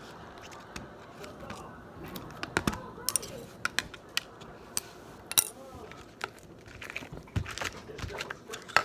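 Freshly made slime being worked by hand, giving irregular sticky clicks and pops that grow frequent about two seconds in.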